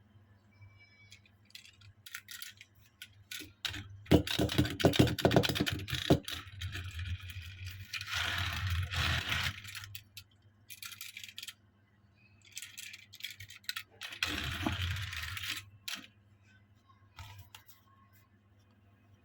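Die-cast toy cars and their packaging being handled: quick clicks and small rattles, then spells of rustling and scraping, twice, with short gaps between.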